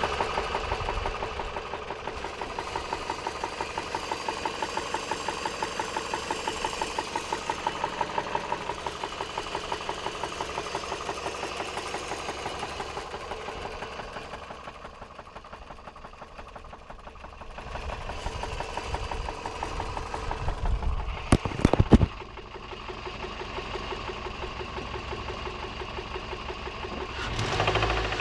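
Toyota 1NZ-FE four-cylinder petrol engine running with a steady, rhythmic knock, about four to five beats a second, dying down for a few seconds past the middle and returning. The knock comes from a failed connecting rod.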